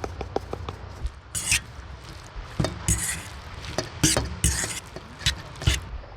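Kitchen utensil scraping and clinking in a bowl: about eight short, irregular strokes, with a few light clicks at the start.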